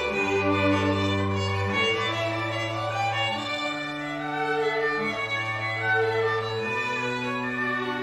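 Slow classical music for violin and cello: long bowed notes, each held a second or more, with the cello moving step by step underneath.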